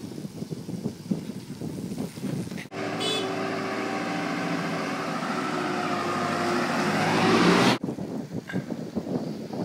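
Small farm tractor's engine running with a steady drone that grows louder as it approaches; it starts and stops abruptly about three seconds in and near the end. Before and after it, wind and tyre noise from a bicycle ride.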